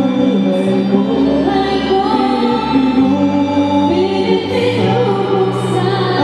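A woman singing live into a handheld microphone over a recorded backing track, with sustained bass notes underneath.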